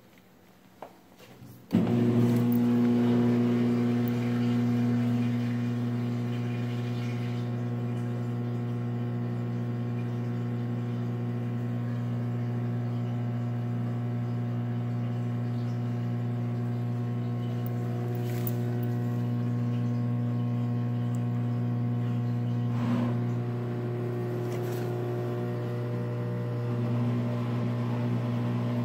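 Frigidaire Affinity washing machine's electric drain pump switching on about two seconds in and running with a steady hum as it pumps the water out of the tub; the freshly cleared pump is working.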